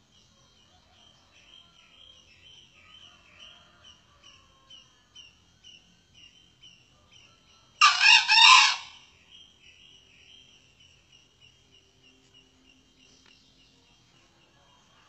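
A male junglefowl crows once, a short three-part crow about eight seconds in. Underneath, insects chirp steadily at about three pulses a second.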